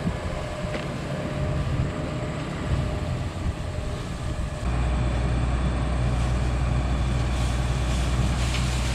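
Heavy diesel farm machinery engine running, its note getting louder and steadier about halfway through.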